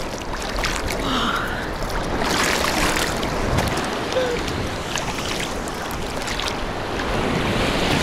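Sea surf rushing and sloshing close around a person standing chest-deep among breaking waves, a steady roar of water mixed with wind on the microphone.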